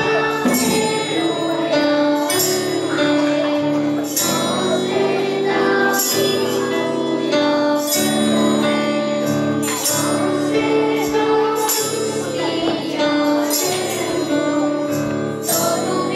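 Music with hand-held jingle bells shaken in time, a bright jingle about every two seconds over steady sustained notes.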